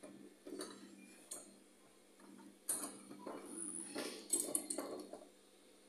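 Metal wing corkscrew and glass wine bottle being handled while opening the wine: a series of short clicks and clinks, most of them bunched together past the middle.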